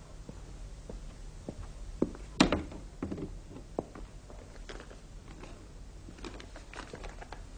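Footsteps with light knocks, then a wooden wardrobe door clunks open about two and a half seconds in, the loudest sound. After that come faint crisp rustles of a paper envelope being handled.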